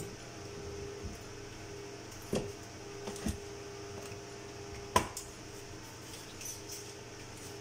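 A few knocks and light clatter of objects being handled and set down on a workbench, over a steady low hum. The sharpest and loudest knock comes about five seconds in.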